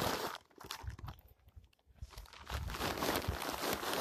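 Close rustling and crunching of camera handling against clothing, in two spells with a quieter gap of about two seconds between them.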